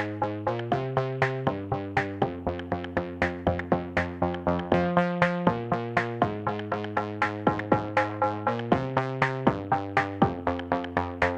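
Background music: synthesizer chords changing every second or so over a steady electronic beat of about four pulses a second.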